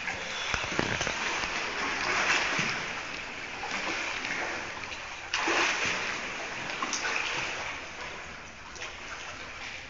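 Pool water splashing and sloshing as swimmers move through it, in surges that swell and fade every second or two, with a sudden louder splash about five and a half seconds in.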